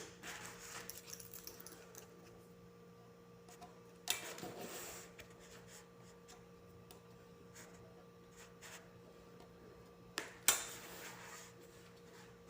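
Faint rubbing and scraping of EVA foam craft sheets and tools being handled on a table. There is a sharp knock about four seconds in and two more just after ten seconds, each followed by about a second of rustling.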